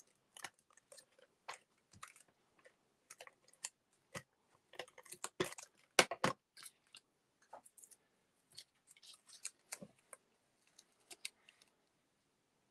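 Stampin' Seal tape runner laying adhesive on cardstock, then paper being handled, folded and pressed: scattered light clicks and scratchy rustles, with two sharp clicks about six seconds in.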